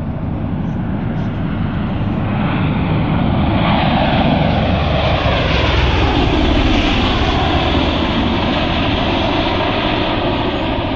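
V-22 Osprey tiltrotor making a low pass overhead: the beat of its two big proprotors over the engine noise, growing louder as it approaches. After the loudest point, about halfway through, the pitch drops as it passes and the sound eases a little.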